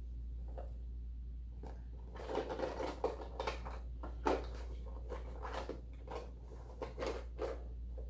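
Hands rummaging inside a small handbag: scattered rustles and light knocks of items being moved about, starting about two seconds in, over a steady low hum.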